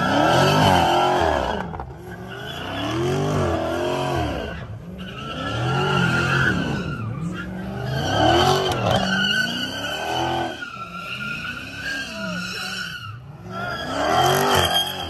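A car doing donuts: its engine revs up and falls back over and over, roughly every two seconds, while its tyres squeal on the pavement throughout.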